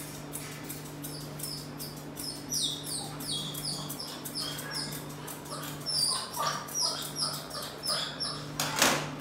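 Grooming scissors snipping a husky's neck fur, several snips a second, each close giving a high, briefly falling metallic ring as the blades slide shut.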